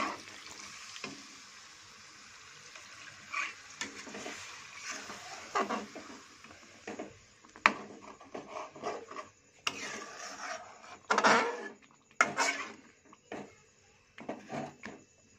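A spatula stirring and scraping chicken pieces through thick masala in a metal kadai, over a faint sizzle of frying. The scrapes and knocks come in irregular bursts, the loudest about eleven seconds in.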